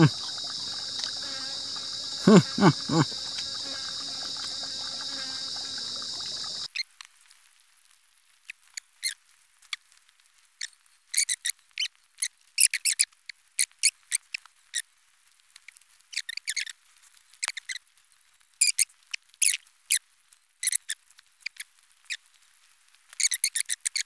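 Steady high-pitched drone of forest insects that cuts off suddenly about seven seconds in. After that, scattered short clicks and ticks break an otherwise near-silent stretch.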